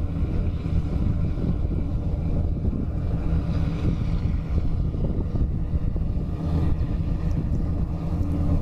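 Vectorfog H500 truck-mounted thermal fogger running at a distance: a steady low drone from its pulse-jet engine, with some wind noise on the microphone.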